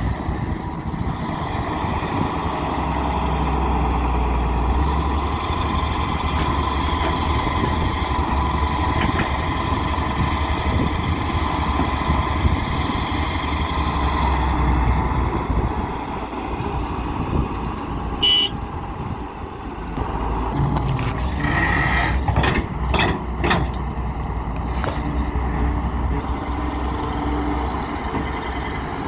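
Daewoo 170W-III wheeled excavator's diesel engine and hydraulics running steadily under work, with a steady high whine over the engine. There is a brief high tone about two-thirds of the way through, and a run of short knocks shortly after.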